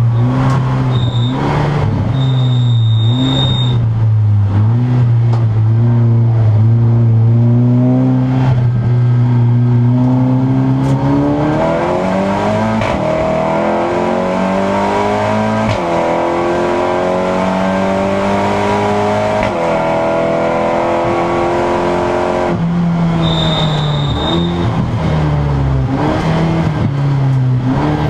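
Seat Leon Supercopa race car's turbocharged four-cylinder engine heard from inside the cockpit, first holding a steady note, then climbing hard with quick upshifts about 16 and 20 seconds in before the revs fall away. Short high electronic beeps sound several times early on and once more near the end.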